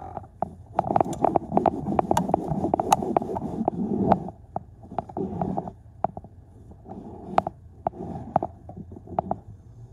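A cloth being scrubbed hard on car floor carpet: spells of rough rubbing mixed with many sharp clicks and knocks, busiest in the first four seconds, then in shorter spells.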